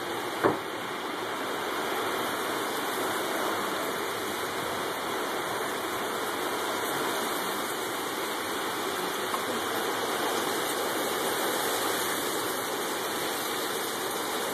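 Heavy rain pouring down in a steady, even rush, with one sharp knock about half a second in.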